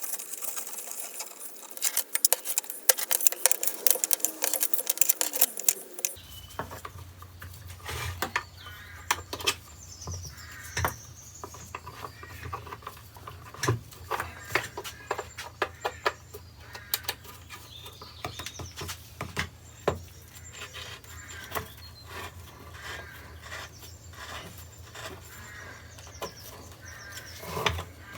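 Clicks and taps of plastic and metal metal-detector parts being handled: a dense run of quick clicks over the first six seconds, then scattered taps over a steady low hum.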